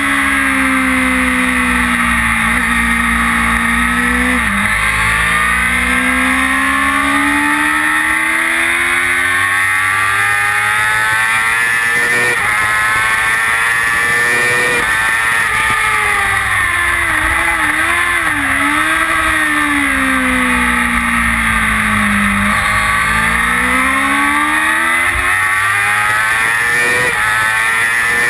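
Kawasaki ZX-6R's inline-four engine at track speed, its note climbing hard through upshifts and falling away under braking several times. Steady wind noise rushes under the engine.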